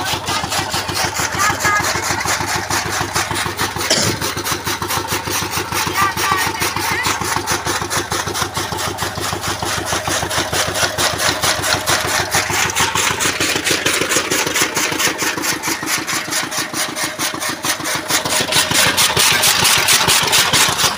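Power-driven chaff cutter (kutti machine) running and chopping green fodder stalks as they are fed in, with a fast, steady chopping rhythm. There is one sharp knock about four seconds in.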